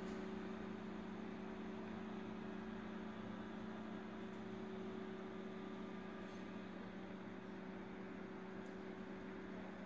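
A steady low electrical hum over a faint even hiss, unchanging throughout.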